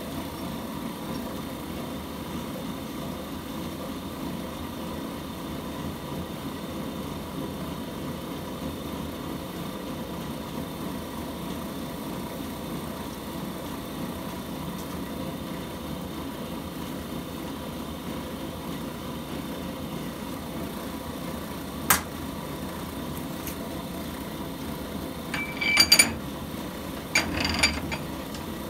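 Steady low machine hum throughout, with one sharp click about three-quarters of the way in. Near the end comes a cluster of metallic clinks and knocks as a steel brake lathe arbor is handled and slid into the lathe spindle.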